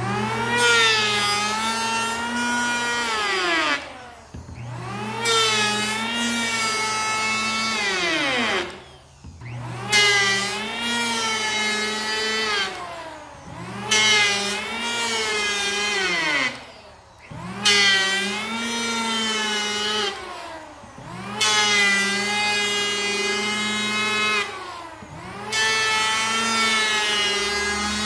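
Electric hand planer cutting across the end grain of a walnut cutting board, run in about seven short passes. Its motor pitch rises as each pass starts and sinks as it winds down between them.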